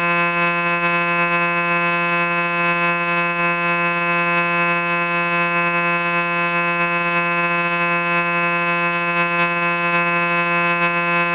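Synthesized robot sound effect: one steady electronic buzzing tone, held at a single unchanging pitch throughout.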